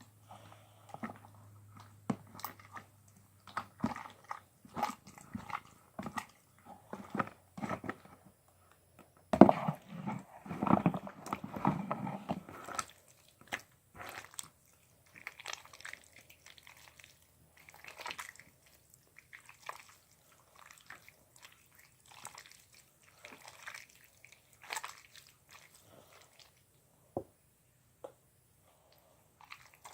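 Homemade glue slime being mixed: irregular wet squishing and clicking, busiest and loudest for a few seconds about ten seconds in.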